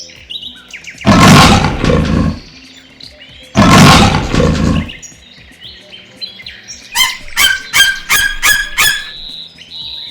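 Two loud roars from a large wild animal, a second or so apart, followed near the end by a quick run of about six short, pitched calls, with birds chirping throughout.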